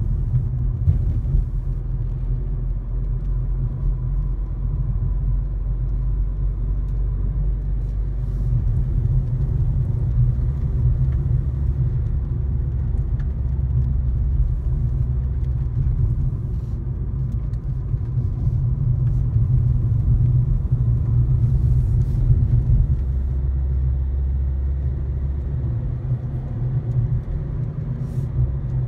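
Steady low rumble of a car's engine and tyres heard from inside the cabin while it drives along a road.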